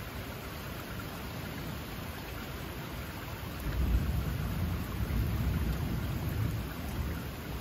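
Steady rain falling through pine trees, with a low roll of thunder swelling about halfway through and dying away over a few seconds.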